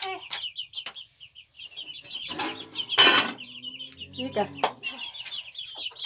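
Chickens clucking, with a steady run of short high chirps several times a second and one louder call about three seconds in.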